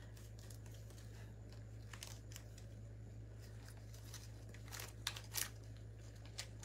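Faint rustling and crinkling of artificial greenery stems being pushed into a metal lantern around a candle, with scattered small clicks, a few sharper ones about five seconds in, over a steady low hum.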